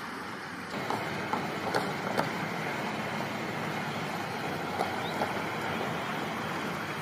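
Steady rushing noise of strong storm wind, with a few short knocks and rattles scattered through it.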